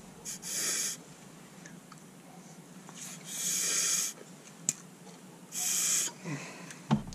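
Three short hissing puffs of air blown through a passage of a Yamaha Grizzly ATV carburetor to clear it, followed by a couple of light clicks near the end.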